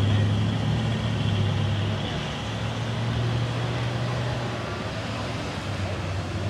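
A motor vehicle running: a steady low engine hum with road noise, easing off a little after about four and a half seconds.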